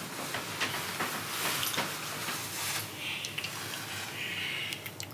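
Bed sheets and satin clothing rustling as two people embrace on a bed, with a few short clicks of kissing.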